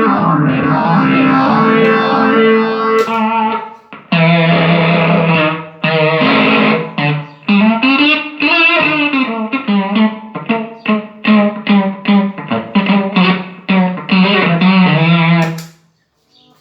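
Electric guitar played through a Line 6 POD HD500 multi-effects unit into a Pignose G40V tube amp: held notes and a bent note, then a quick run of short picked notes, stopping near the end. This is a sound test of the HD500 after a repair of its fried A/D converters.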